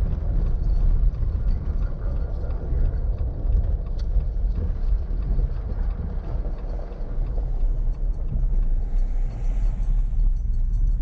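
A vehicle driving along a road, heard from inside: a steady low rumble of engine and road noise.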